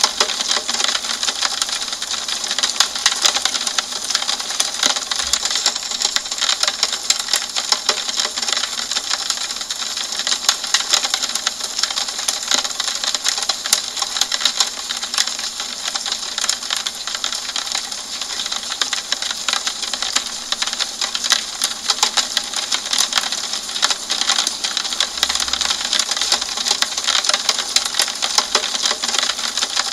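Steady rain on a window pane: a dense stream of small drop ticks over an even hiss.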